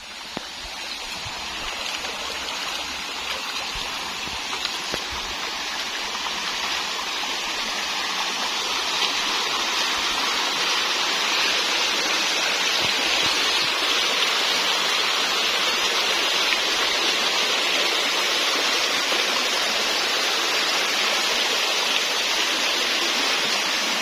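Water rushing over rocks in a shallow forest stream: a steady rush that grows louder over the first ten seconds or so, then holds.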